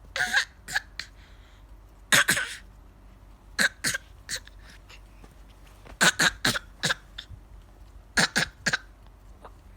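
Baby putting on a fake cough: short coughs in quick runs of two to four, repeated about five times with short pauses between.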